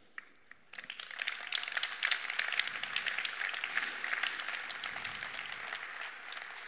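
Audience applauding. It starts under a second in, builds quickly, and fades toward the end.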